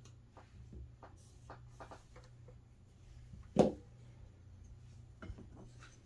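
Handling noises: a few faint clicks, one sharp knock about three and a half seconds in and a smaller one near the end, over a low steady hum.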